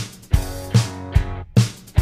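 Rock band music: a drum kit beating steadily about two and a half times a second, under electric guitar and an electric bass playing a descending riff.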